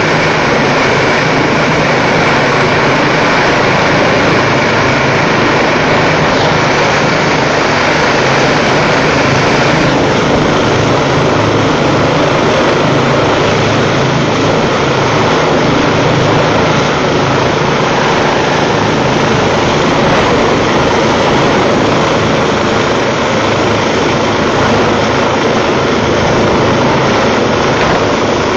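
Rescue helicopter hovering close overhead: loud, steady rotor and turbine noise. A thin high whine drops out about ten seconds in.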